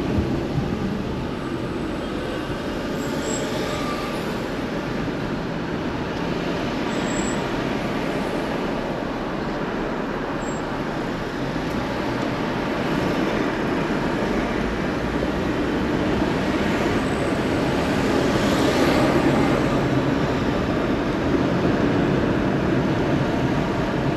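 Steady road noise of a car driving in slow city traffic, heard from inside the cabin: tyre and engine rumble with the hiss of surrounding traffic, growing louder for a couple of seconds about three quarters of the way through.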